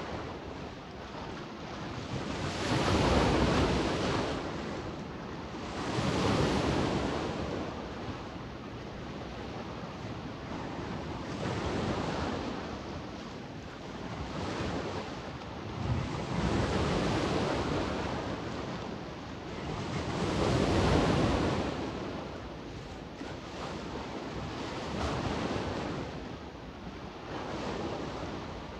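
Adriatic sea waves washing onto the shore. Each wave swells and falls away every three to five seconds, with the loudest surges a few seconds in and again about twenty seconds in.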